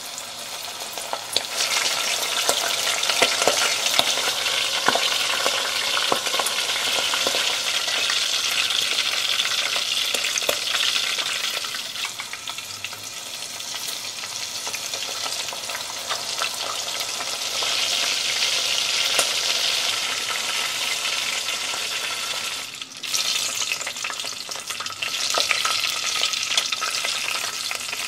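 Hot oil sizzling and popping as flour-coated squid tentacles deep-fry in a small tempura pot, swelling over the first couple of seconds as pieces go in. Near the end the sizzle breaks off briefly, then another batch fries on.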